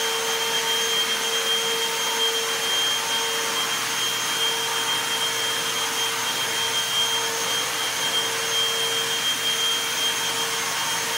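Upright vacuum cleaner running steadily: a loud, even motor whine over the rush of air.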